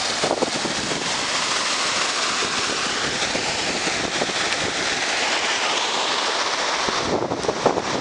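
Steady rush of a shallow river flowing over rocks and small rapids, a loud even hiss that eases briefly near the end.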